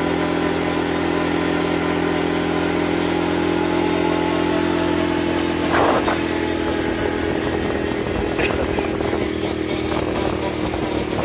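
ATV engine running steadily. About six seconds in there is a short clatter, after which the engine note drops and becomes less even.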